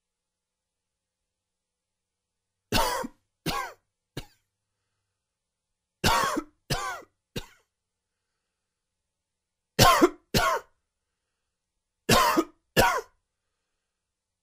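A man's quick, dry, wheezy cough, starting about three seconds in and coming in four short bouts of two or three coughs each, a few seconds apart. The uploader puts the cough down to spring pollen allergy.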